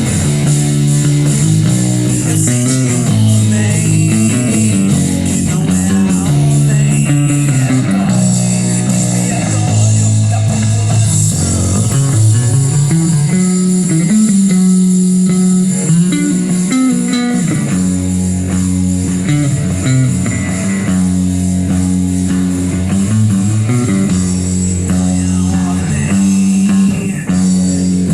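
Rock music with the bass guitar brought up loud in the mix, playing a moving line of low notes over guitars and drums.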